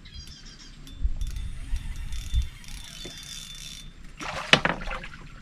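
Spinning reel being cranked to reel in a hooked catch, its gears ticking and whirring in runs. About four and a half seconds in there is a short loud rasping clatter.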